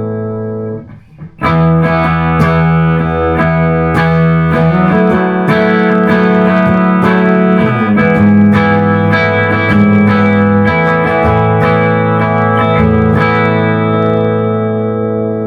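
Electric guitar played through an amp with light distortion: a held chord fades and stops about a second in, then picked chords ring out one after another.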